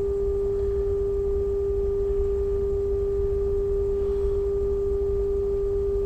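A steady pure tone near 400 Hz from the vacuum-tube AM radio's speaker, the test tone it reproduces while its tuned coils are being peaked during alignment.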